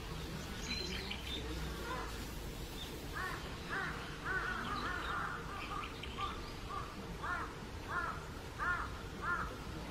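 A bird calling over and over: a run of about ten short calls, each rising and falling in pitch, starting about three seconds in and coming roughly every half second at the end.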